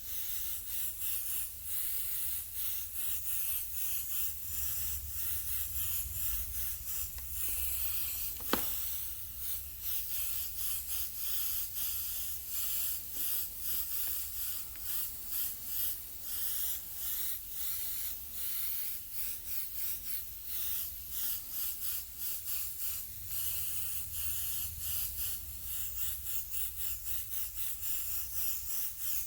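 Airbrush spraying paint in quick, repeated short hisses as the trigger is worked on and off, over a low steady hum. A single sharp click comes about eight and a half seconds in.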